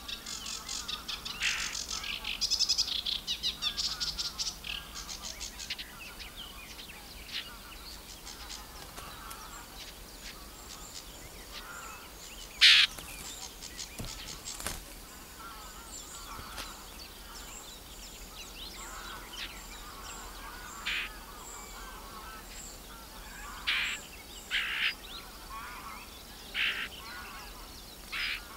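Several birds singing and calling: a fast, chattering song for the first five seconds or so, then scattered short, sharp calls, the loudest about twelve seconds in, over a faint, thin, high note repeated at an even pace.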